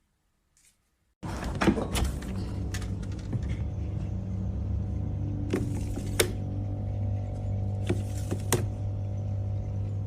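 A steady low mechanical hum that starts abruptly about a second in, with scattered clicks and knocks over it.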